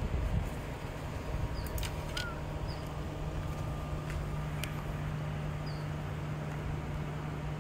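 Outdoor ambience: a steady low hum under a noisy background, with a few faint short bird chirps spread through it and some light clicks.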